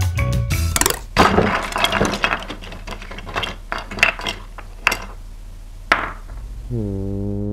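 Music cuts off, then a few seconds of clinking and clattering crashes, like small hard pieces tumbling and breaking apart. Near the end a low, wavering pitched tone starts.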